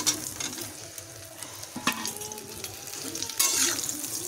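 Sun-dried mango pieces sizzling in hot oil in a kadai just after being tipped in, with a metal spatula scraping the pan as they are stirred. The sizzle eases off after the first burst, then grows louder again near the end.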